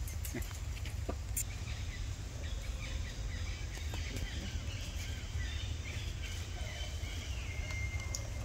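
Outdoor ambience: a steady low rumble under faint bird chirps, with a few light clicks and a thin held whistle near the end.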